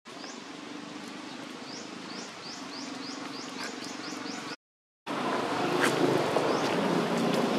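Outdoor ambience with a high, falling chirp repeated several times a second over a faint low hum. The sound cuts out briefly about four and a half seconds in, then returns louder and noisier, with scattered clicks.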